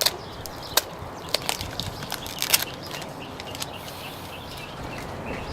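A thin plastic candy jar being handled: a run of sharp, irregular clicks and knocks, thickest in the first two and a half seconds, then sparse.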